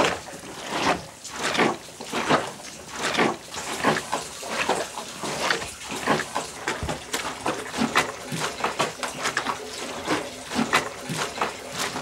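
Bunches of white grapes squelching under bare feet as they are trodden in a wooden vat: a run of short wet squishes, several a second, coming thicker in the second half.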